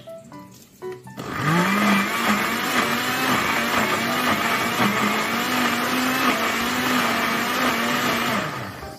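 Countertop blender switched on about a second in: the motor spins up quickly, runs steadily at speed pureeing a thick red sauce, then winds down and stops near the end.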